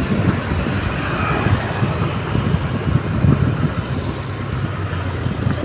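Steady, loud rushing travel noise from a moving vehicle on the road, with an uneven low rumble throughout.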